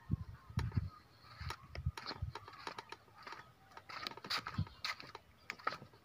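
Footsteps on bare rock: quiet, irregular taps and scrapes with a few soft thuds.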